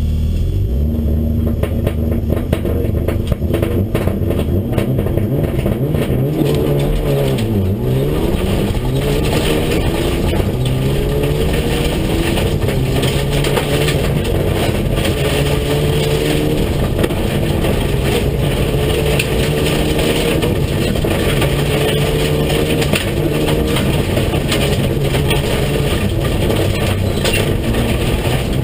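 Rally car's engine accelerating hard through the gears on gravel, heard from inside the cabin: the revs climb, break off at each shift and climb again, with a sharp drop and recovery about seven seconds in. Gravel rattles and clatters against the car throughout.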